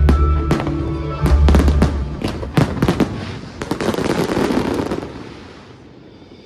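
Aerial fireworks bursting in quick succession, many sharp bangs over background music with a deep bass. Around four seconds in there is a dense crackling, which dies away near the end.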